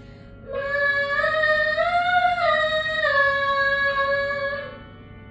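Female voices warming up: one long sung note held for about four seconds, rising a little in the middle and falling back, over a faint steady instrumental accompaniment.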